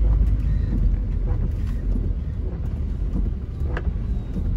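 Steady low rumble of a car's cabin while driving on a wet road in the rain, with a few faint clicks.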